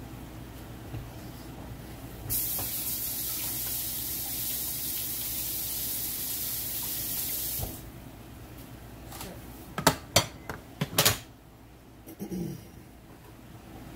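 A kitchen tap runs for about five seconds, starting and stopping abruptly, followed by a quick series of sharp knocks.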